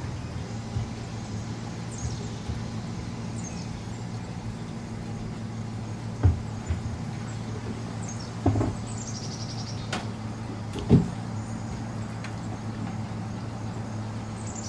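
An engine running steadily at low speed, a low even hum, with a few dull knocks and one sharp click about two-thirds of the way through.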